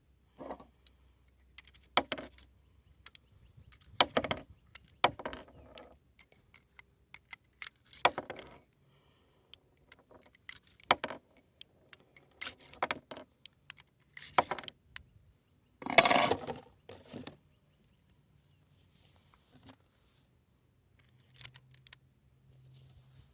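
Metallic clicking and clinking of an M1895 Nagant revolver and its cartridges being handled: about a dozen separate clicks and jingles, the loudest a short clatter about two-thirds of the way through.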